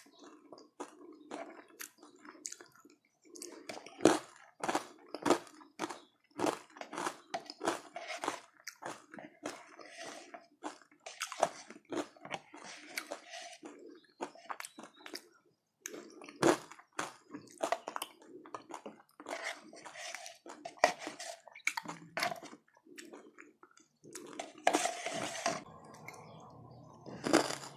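Close-miked chewing of food eaten by the spoonful, with many sharp, irregular crunches and crackles, several a second, and wet mouth sounds between them.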